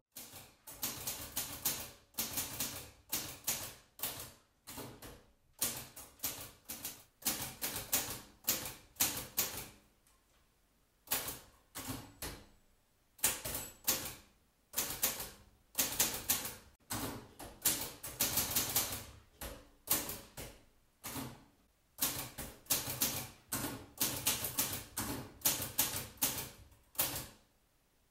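Manual typewriter being typed on: keys striking in quick, irregular runs of clicks broken by short pauses.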